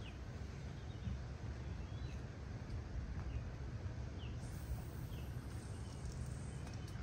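Steady low wind rumble on the microphone, with a bird's short descending chirps repeating about once a second.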